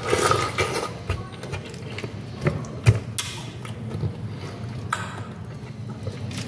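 Biting into a fresh, juicy pineapple and chewing it close to the microphone: a wet bite right at the start, then scattered wet clicks and smacks of chewing.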